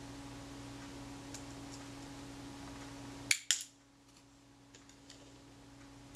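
Two sharp metal clicks close together a little past halfway, then a few faint ticks, as a small steel pin and tweezers are worked against the camera's lever and chassis. A steady low hum runs underneath and cuts out at the clicks.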